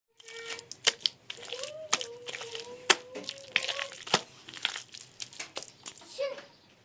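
Wet mud-and-straw plaster worked by hand in a basin: squelching and squeezing, with several sharp wet slaps.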